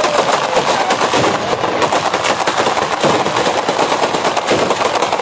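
Batteria alla bolognese, a ground-level battery of firecrackers strung along wires, going off in a rapid, unbroken chain of bangs, like machine-gun fire.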